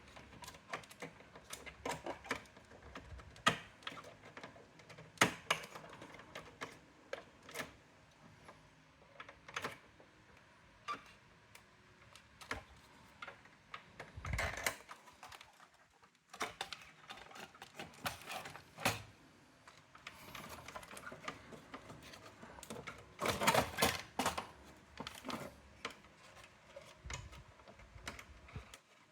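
Irregular clicks, taps and knocks of plastic and metal parts of a Brother AX-425 electronic typewriter being handled and taken apart. There are busier clusters of rattling knocks about halfway through and again near the end.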